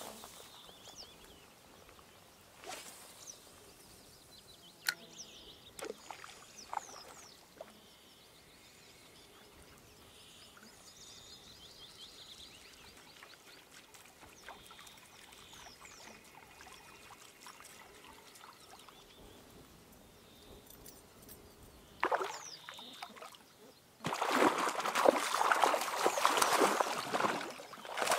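A hooked northern pike thrashing and splashing at the water's surface, a loud irregular splashing that starts about 24 seconds in after a long quiet stretch.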